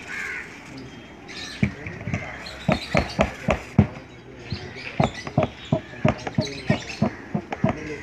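Hand trigger sprayer being pumped again and again, a quick irregular run of sharp clicks and squirts, about three a second, as it mists a pigeon's feathers with anti-lice spray.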